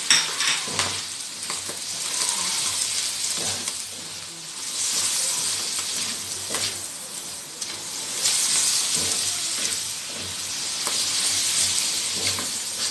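Sliced mushrooms with garlic and onion sizzling as they sauté in a pan, being stirred. The hiss swells and eases, and a few sharp knocks of the stirring utensil against the pan come through.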